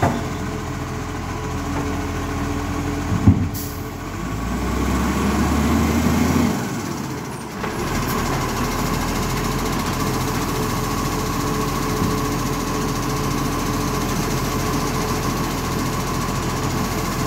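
Iveco side-loading garbage truck's diesel engine running as the truck creeps forward along the kerb, with a short sharp air-brake hiss about three seconds in and a louder swell of engine as it moves up. From about eight seconds on the engine holds a steady drone with a constant whine while the automated side arm reaches out and grips a wheelie bin.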